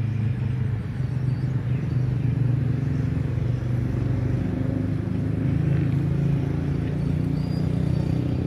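An engine running steadily at an even speed, a continuous low drone with no change in pitch.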